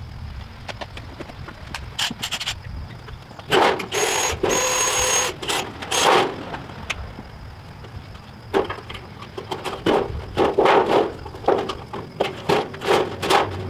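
Carpentry work on lumber: irregular knocks, clatters and scrapes of boards and tools. There are a few louder noisy bursts a few seconds in and a busy run of sharp knocks in the second half.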